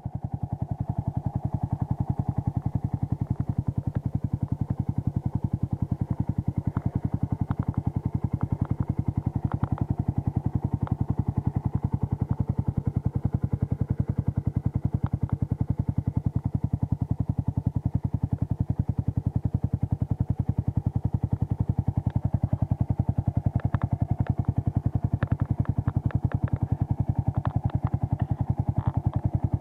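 Yamaha YZF-R125's 125 cc single-cylinder four-stroke engine idling steadily, an even pulsing exhaust note with no revving, and a few faint ticks here and there.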